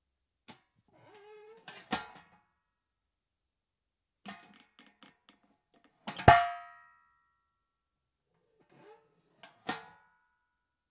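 Small metal household trash can being opened and shut: its lid scrapes and rattles, then comes down with metallic clangs. The loudest clang, about six seconds in, rings on for half a second, and there are lighter clangs about two seconds in and near the end.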